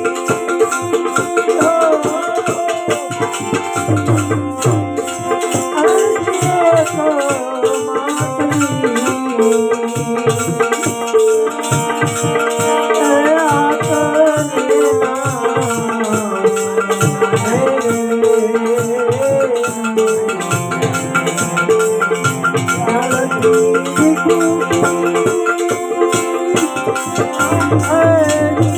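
Instrumental passage of Gujarati devotional bhajan music: a sustained, moving melody over a fast, steady rattling percussion beat.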